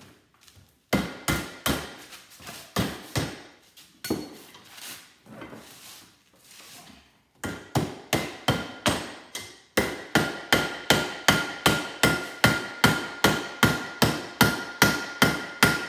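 Hammer blows on a salvaged microwave oven part clamped in a bench vise, struck to knock its copper free, which stays stuck. The blows come singly and unevenly at first, then from about halfway turn into a fast even run of about three a second, with the metal ringing under them.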